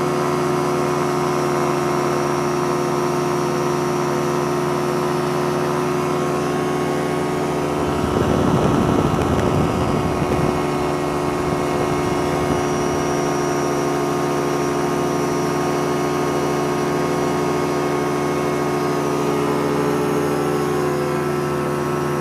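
Small plane's piston engine and propeller droning steadily in cruise, heard from inside the cockpit, with a louder rumble for about two seconds some eight seconds in.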